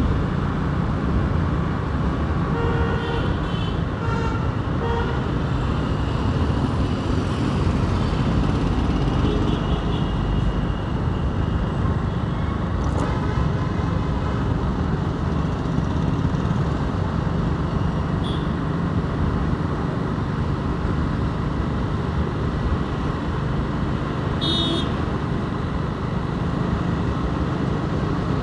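Steady engine and road rumble of a motorcycle heard from the rider's seat while riding in city traffic, with short vehicle horn beeps sounding several times, the clearest near the end.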